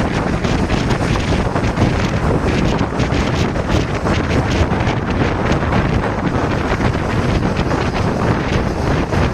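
Steady, loud rush of the rain-swollen river pouring through the vented dam, with wind buffeting the microphone.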